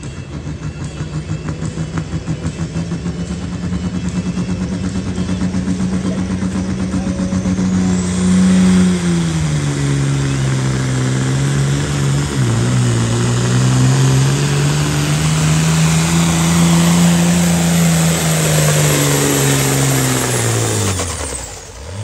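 Ford TW10 tractor's turbocharged diesel engine held at high revs on the line. About eight seconds in it loads up and pulls a weight sled down the track. The revs sag under the load, dip once, climb back, then wind down to a stop just before the end as the pull finishes.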